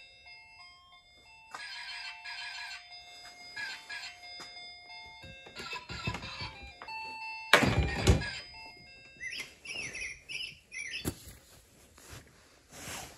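Electronic toy playing a simple beeping melody. A loud clatter of plastic toys being knocked comes about halfway through, then chirpy, bird-like electronic calls near the end.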